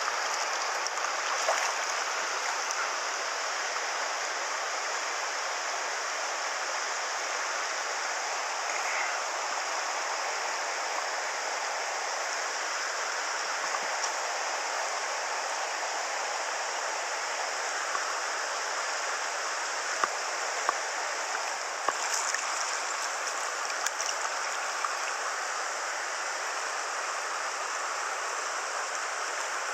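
A river's current rushing steadily, with a few short clicks in the second half.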